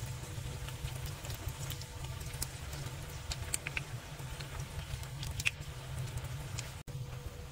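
Falafel balls deep-frying in hot oil: steady sizzling with many small, scattered crackles and pops over a low rumble. The sound cuts out for an instant near the end.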